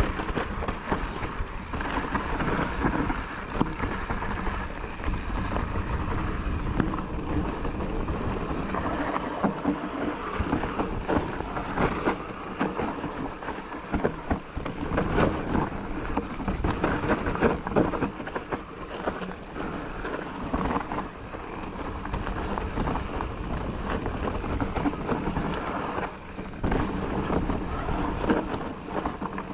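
A Propain Hugene enduro mountain bike descending a rough trail, heard from the rider's action camera: wind buffeting the microphone over the steady rumble of tyres on the ground, with frequent knocks and rattles from the bike over bumps.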